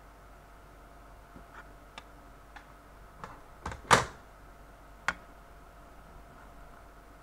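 Plastic Sony Bianca MiniDisc cartridges being handled and set down on a tabletop: a few light clicks, a louder clack about four seconds in and another about a second later.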